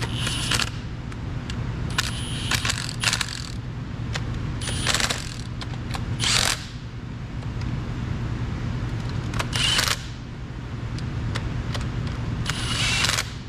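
Cordless driver spinning bolts down onto a Caterpillar D10R final drive planetary carrier in about six short bursts, snugging them lightly before torquing. A steady low shop hum runs underneath.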